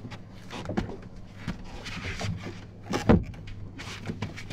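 Irregular knocks and clatter of someone working at a stalled motorboat's engine compartment and hatch, over a low steady hum. The loudest knock comes about three seconds in.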